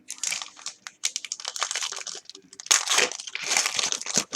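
Plastic foil trading-card pack wrapper crinkling and crumpling in the hands, an irregular crackle throughout, loudest near the end.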